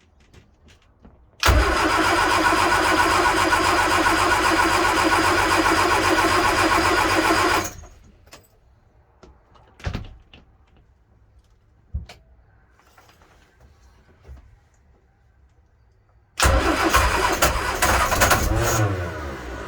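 Boat's Watermota inboard engine being cranked on its starter motor twice without catching: a steady crank of about six seconds that cuts off sharply, a couple of clicks, then a shorter crank near the end that winds down. The engine won't restart, which the owner suspects is down to the spark plugs.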